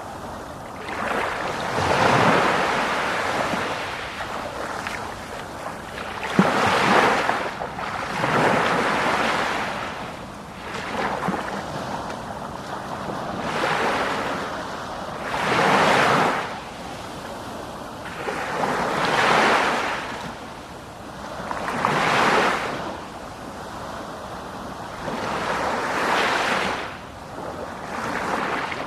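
Sea waves breaking and washing up the shore, one swell of surf after another about every three seconds.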